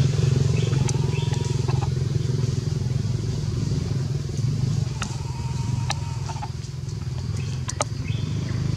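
A small engine running steadily: an even low drone, with a few sharp ticks and brief thin high tones over it.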